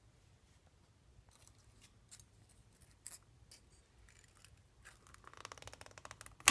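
Thin clear plastic deli-cup lid being handled and pressed onto its cup: scattered light plastic clicks, a quick run of crackling near the end, and a sharp snap as the lid seats.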